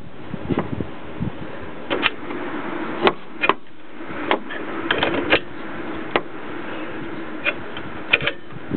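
Irregular metallic clicks and knocks of hand tools working on a Jeep's front axle, over a steady hum.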